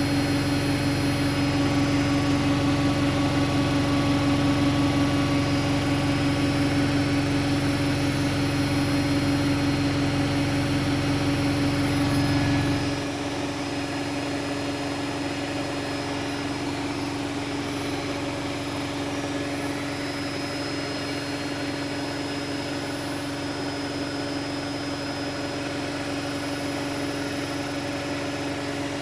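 Hoover 8 kg washing machine running its spin cycle: a steady motor hum and whine over a low drum rumble. About 13 seconds in the low rumble drops away abruptly and the machine runs on quieter, the hum continuing.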